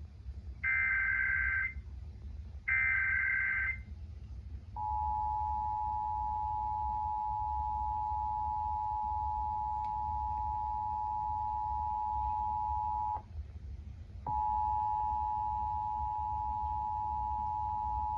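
Emergency Alert System broadcast: the last two of the three short screeching SAME header data bursts, then the EAS two-tone attention signal held steady for about eight seconds. After a one-second break the same two-tone alert sounds again for about four seconds, stopping at the end, over a steady low hum.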